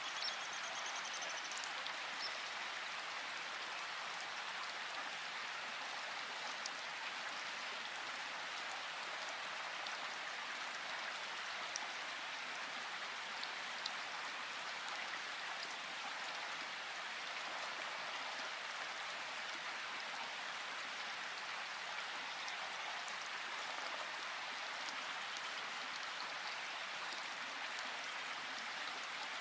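River water rushing steadily, with a short high bird call about a second in.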